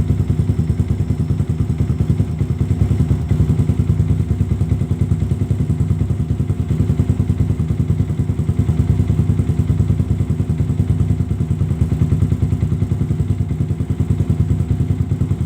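Yamaha Vixion's 150 cc single-cylinder four-stroke engine idling steadily through an aftermarket PDK stainless-steel racing exhaust, giving a deep, bassy exhaust note with an even pulsing beat.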